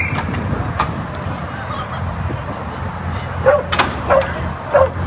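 A dog barking, about four short barks in the second half, as if eager to join the game. Occasional sharp clicks of hockey sticks and ball on the rink surface and a steady low hum lie underneath.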